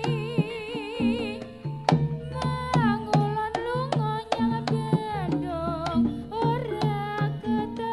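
Live jaranan music: hand drums strike a quick, busy pattern over a steady bass, with a pitched melody on top that wavers and slides up and down.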